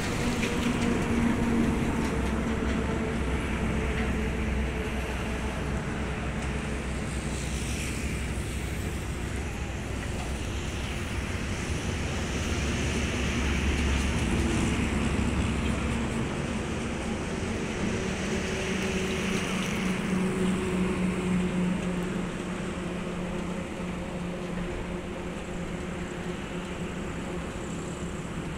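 Heavy diesel truck engines running at a slow crawl, a steady low drone with rumble that swells a little twice.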